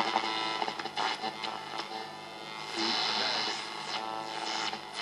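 Orion AR205 Orionette valve radio being tuned between stations: hiss and crackle with a faint steady hum, and a whistle that sweeps up and down in pitch three to four seconds in as the dial passes a station.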